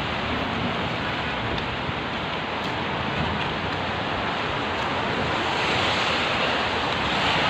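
Heavy rain pouring steadily, an even hiss that swells slightly near the end.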